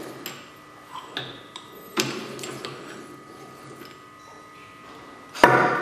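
Light metallic clicks and knocks from the metal clamping head of a bursting strength tester as its pressure gauge is taken off, with one louder clunk near the end.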